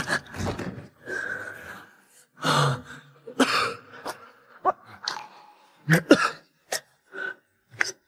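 A person coughing repeatedly in short, irregular bursts, a few of them in quick pairs, the last ones weaker.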